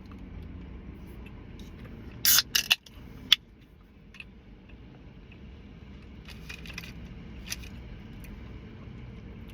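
Handling noises: a quick cluster of loud crackling rustles about two seconds in, a sharp click just after, and a few lighter clicks later, over a low steady hum.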